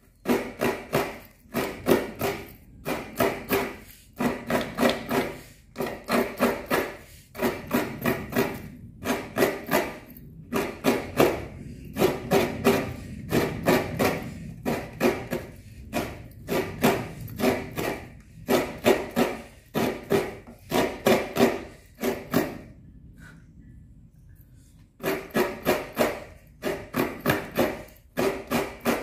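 Coconut meat grated by hand, a coconut half rubbed against a grater on a wooden block: rhythmic rasping strokes, a few a second, in runs, with a pause of about two seconds near the end.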